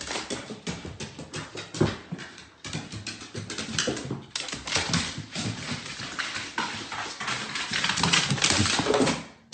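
A dog's claws and paws clattering on hardwood stairs as it goes down, a fast, irregular run of taps.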